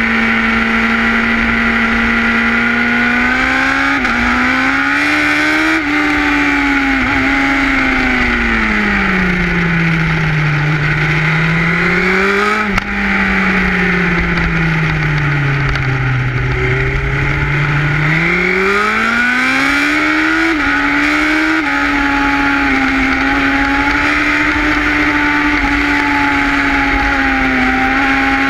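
Sport motorcycle engine heard close to its carbon-fibre slip-on silencer while riding, with steady wind rumble underneath. The engine note rises and falls in long sweeps with the throttle through the bends, with a few short sudden steps in pitch.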